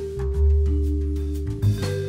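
Instrumental background music: held bass notes and sustained tones with a few light percussion hits.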